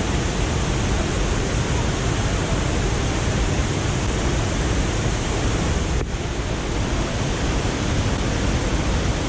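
Waterfall on a river: steady, loud rushing water from cascading falls, with a brief dip about six seconds in.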